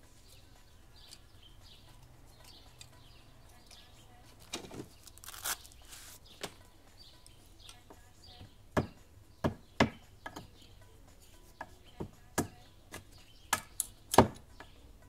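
Dry wooden kindling sticks clacking against each other and the small folding metal wood stove as they are picked up and fed into it. The sharp, irregular knocks start about four seconds in and come a dozen or so times, the loudest near the end, with birds chirping faintly.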